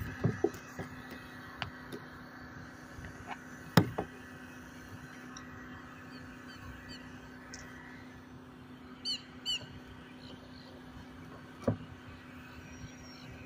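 Seabirds flying overhead calling: two clear downward-sweeping calls in quick succession about nine seconds in, with a few fainter calls a little before. A few sharp knocks around a kayak also sound, the loudest about four seconds in, over a steady low hum.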